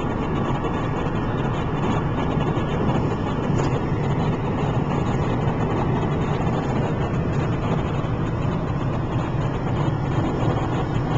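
Steady road noise inside a car's cabin cruising at highway speed: an even, unbroken hum of tyres and engine.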